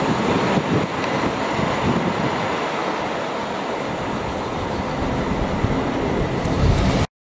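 Freight train of bogie hopper wagons rolling away along the track, a steady noise of wheels on rails. The sound cuts off abruptly near the end.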